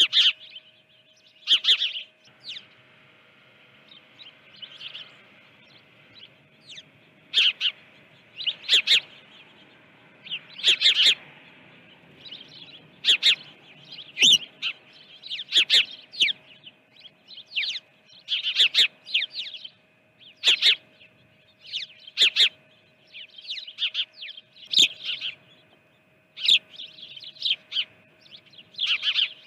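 Small songbirds chirping: short, high chirps in quick clusters every second or two, with a faint steady hum beneath.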